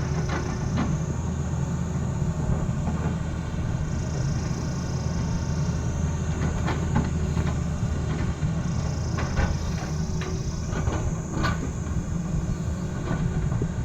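Tata Hitachi excavator's diesel engine running steadily, with irregular sharp knocks and scrapes from the bucket working the road surface.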